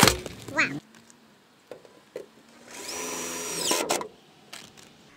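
A sharp knock, then a cordless drill runs for about a second, driving a screw into a metal chimney support box; its high whine falls away as the trigger is released.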